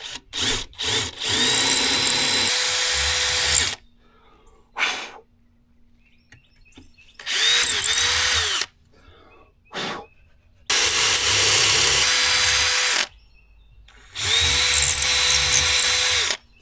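Power drill boring into cement block, its bit wetted with water so it doesn't burn up. A few short trigger blips at the start, then four runs of a few seconds each. The motor whine rises as it spins up and dips under load in the second run.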